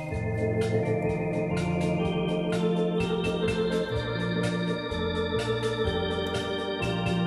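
A c.1982 Hammond Colonnade console organ playing a lounge-style arrangement: held chords over a bass line that changes note every second or so, turning louder right at the start.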